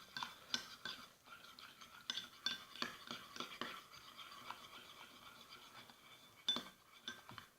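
A spoon stirring shampoo and salt in a small cup, with irregular scraping and clinking against the cup and one louder clink about six and a half seconds in.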